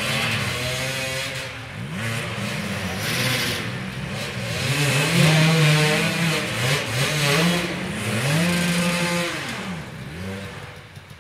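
Several enduro motorcycle engines revving hard, over and over, their pitch rising and falling as the bikes struggle over a fallen log. The revving is loudest around the middle and dies down near the end.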